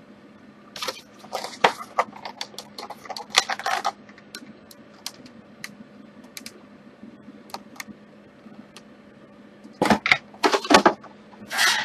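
Paper being handled: quick crinkling rustles and sharp clicks in a dense run lasting about three seconds from a second in, then a few louder rustles near the end, over a faint steady hum.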